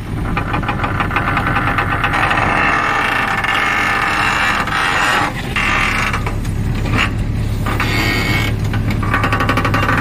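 Backhoe loader's diesel engine running under load while its hydraulic digging arm works, with a fast regular chug in the first couple of seconds and a steadier deep hum later on.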